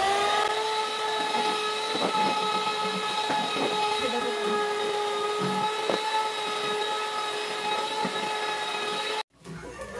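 Electric hand mixer running at a steady high whine, beating egg yolks into stiffly whipped egg whites, with a few short knocks of the beaters against the bowl. It stops abruptly near the end.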